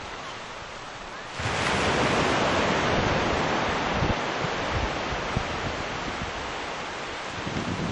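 Wind rushing over the microphone: a steady hiss that turns suddenly louder about a second and a half in, with low buffeting gusts underneath.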